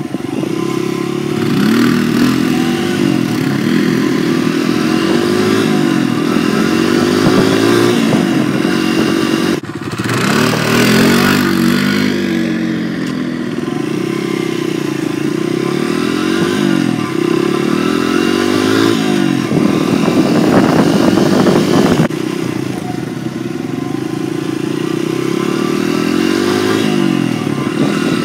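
Dirt bike engine heard from the rider's seat while riding, its pitch climbing and dropping again and again as the throttle is worked.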